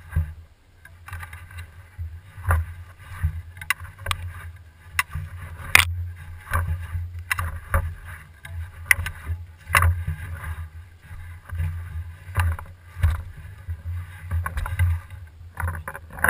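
Handling noise from a camera mounted on an Airrow bow as the player moves: irregular knocks and clicks over a steady low rumble.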